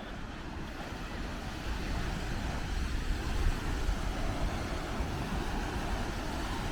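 Ocean surf washing on a beach, a steady rushing noise with a deep rumble that swells about two seconds in.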